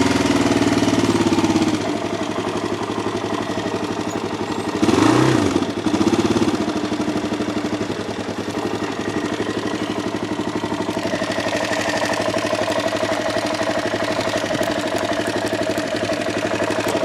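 2003 Suzuki LTZ 400 quad's single-cylinder four-stroke engine idling, off choke soon after a cold start. It revs up briefly near the start and again about five seconds in.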